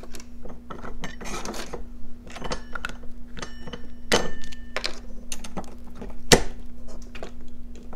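Plastic hubcap on a generator wheel being gripped, pried and popped off by hand: a string of clicks and knocks, with a sharp snap about six seconds in and a brief metallic ring around the middle.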